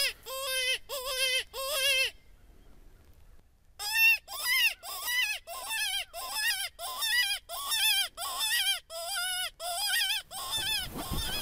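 Hand-blown predator call sounding short, wavering distress cries to lure coyotes: four quick cries, a pause of about two seconds, then a steady run of about fifteen more, two or three a second.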